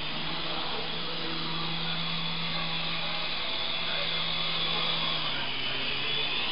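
Syma S107G mini remote-control helicopter's electric motors and coaxial rotors whirring steadily in flight, the tone dropping slightly about five seconds in.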